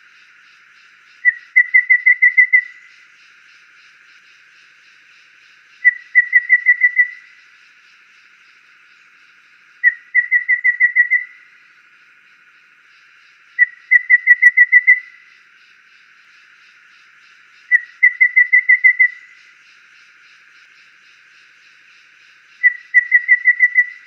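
Golden babbler (Cyanoderma chrysaeum) singing: six phrases about four seconds apart, each a single whistled note followed by a quick run of six or seven whistled notes on one pitch. A faint steady hiss runs underneath.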